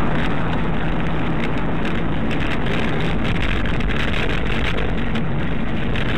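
Steady engine and tyre noise inside a moving car, heard through a dashcam microphone, with a constant rushing sound and no clear impact.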